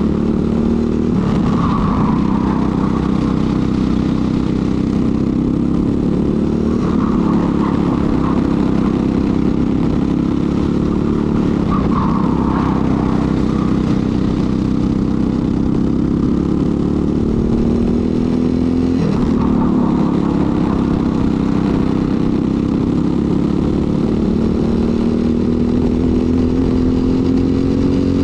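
Briggs & Stratton LO206 single-cylinder four-stroke kart engine running hard, its pitch dropping and climbing again several times, with a long steady climb through the last eight seconds.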